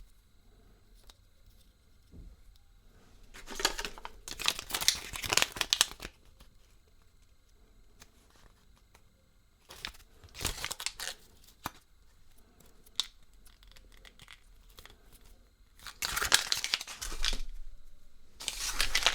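Thin wrapper packaging being crinkled and torn by hand in four separate bursts, the longest and loudest about four to six seconds in.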